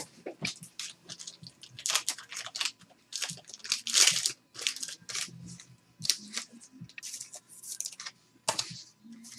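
Crinkling and rustling of thin plastic penny sleeves as trading cards are handled and slid into them, in many short, irregular bursts. A sharp knock right at the start.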